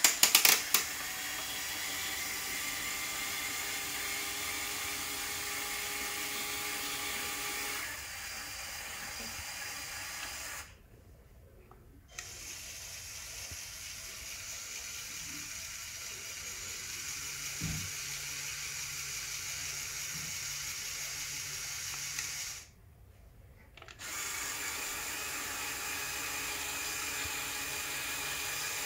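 Small electric motors and plastic gearing in a motorized Lego Technic model running with a steady whine. The whine changes pitch and level about a quarter of the way in, stops for about a second twice, and starts again each time.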